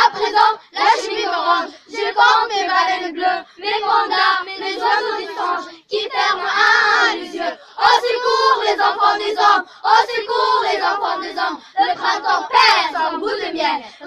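A group of young girls singing together in short phrases, each broken off by a brief pause.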